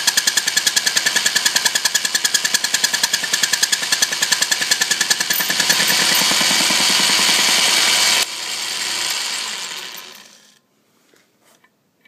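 Atlas lathe taking an interrupted cut, the tool striking the work about six times a second. After about five and a half seconds it runs steadily. About eight seconds in the sound drops suddenly and fades over two seconds as the machine winds down.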